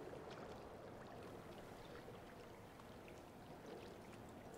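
Faint lapping and trickling of indoor swimming-pool water, a soft even wash with scattered small splashes.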